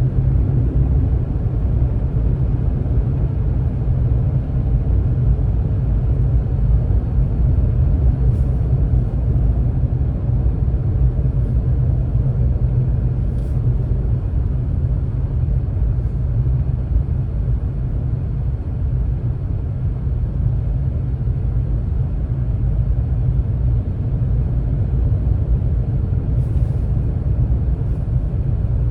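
A car driving in slow traffic: a steady low rumble of engine and road noise, with a few faint clicks.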